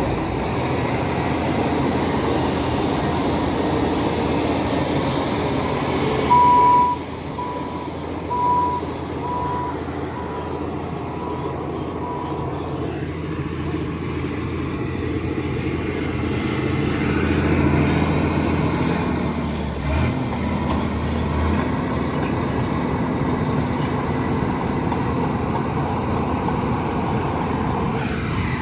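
Diesel engines of heavy earthmoving machinery running steadily under work. About six seconds in, a reversing alarm starts beeping at a steady pitch, roughly every two-thirds of a second, and fades out after about six seconds.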